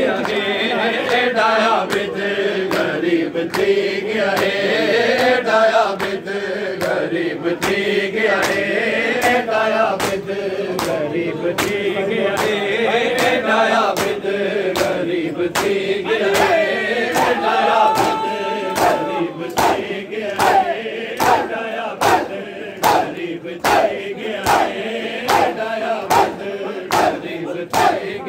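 A crowd of men chanting a noha together, with rhythmic chest-beating (matam): sharp hand slaps on bare chests in a steady beat, a little faster than once a second.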